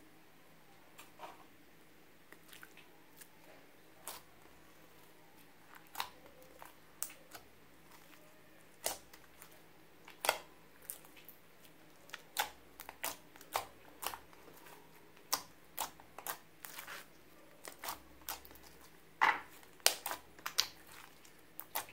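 Slime being pressed and worked by hand, giving off irregular sharp pops and crackles. They are sparse at first and grow more frequent and louder in the second half.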